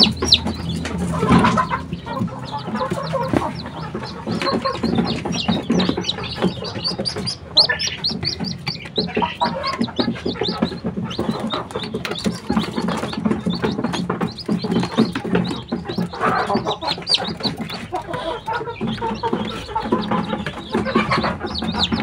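Day-old kampung chicks peeping nonstop: a steady stream of short, high, falling cheeps, with lower chicken clucking underneath.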